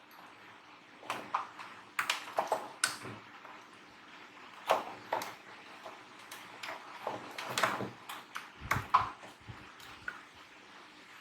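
Irregular clicks and light knocks, a couple of dozen spread unevenly, from small hard parts and tools being handled, over a faint steady hum.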